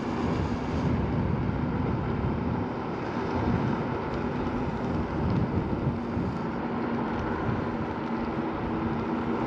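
Segway Ninebot Max G2 electric scooter riding at speed on a coarse path: steady tyre rumble and wind on the microphone, with a faint steady hum from the scooter underneath.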